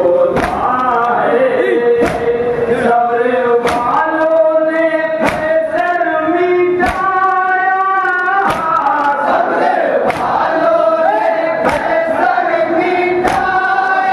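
Men chanting a noha, a Shia mourning lament, into a microphone, with the crowd joining in the refrain. Under it runs a steady beat of mourners' chest-beating (matam) slaps in unison, a little faster than once a second.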